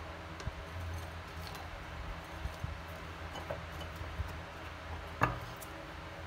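Small glass jars handled on a countertop: light taps and clinks, the loudest a single sharp glass-on-glass clink about five seconds in as one jar is set onto the other. A steady low hum runs underneath.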